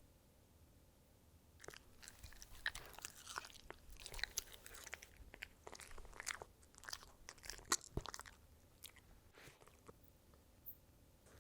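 A dog chewing crunchy food, with rapid crisp crunches that start a couple of seconds in and thin out near the end.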